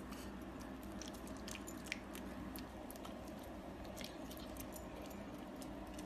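Small dog chewing a treat: a run of faint, crisp crunching clicks.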